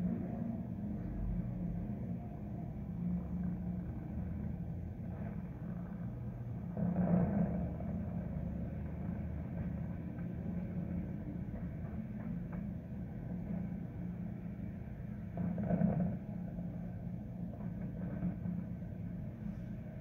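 Steady low rumble of the city, swelling briefly about a third of the way in and again later on.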